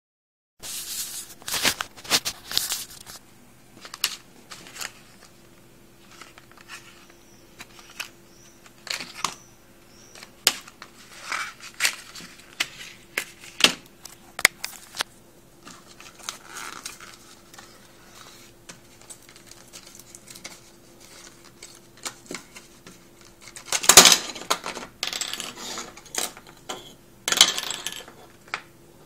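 Unpacking a digital thermometer from its cardboard box and plastic tray: scattered clicks, taps and short rustles of cardboard and plastic, with the loudest rustling near the end as the tray slides out of the box.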